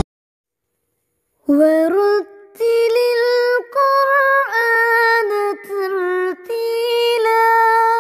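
A high voice singing or chanting a short melodic phrase in held notes that step up and down, with no instruments. It starts about a second and a half in.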